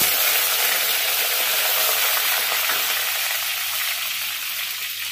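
Curry leaves dropped into hot oil in an earthen clay pot, sizzling loudly as they fry in a tempering of mustard seeds and dals. The hiss starts suddenly and slowly dies down.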